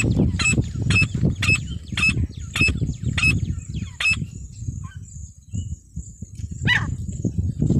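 Female francolin (teetar) calling: a run of short, sharp calls about twice a second that breaks off about four seconds in, then one more call near the end.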